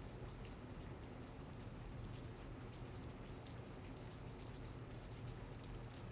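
Steady rain falling, with scattered individual drops ticking against a surface, over a low steady hum.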